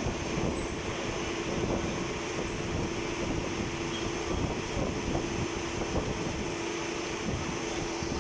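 Machining-shop machinery running steadily: a constant mechanical din with a steady hum, and faint short high tones coming and going.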